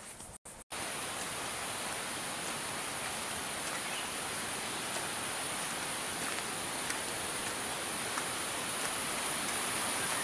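Steady rush of flowing water, an even hiss that grows slowly louder, after a brief dropout at the start.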